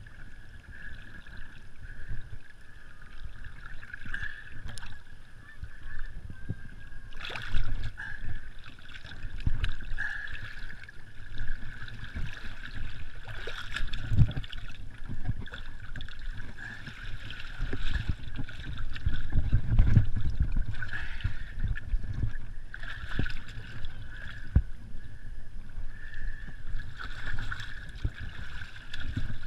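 Water sloshing and splashing around the fat tyres of a Surly Pugsley fat bike as it is pushed through shallow water and up onto wet rock, with irregular knocks and low thumps from the bike-mounted camera. A steady high whine runs underneath throughout.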